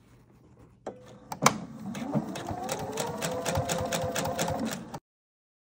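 Domestic sewing machine starting up with a sharp click, then stitching steadily through fabric: a motor whine that rises a little as it gets up to speed, over a rapid, even ticking of the needle. The sound cuts off abruptly about five seconds in.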